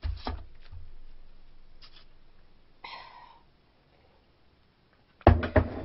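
Drinking from a mug: a knock as it is lifted, a sip about three seconds in, then a few loud knocks near the end as the mug is set down on the table.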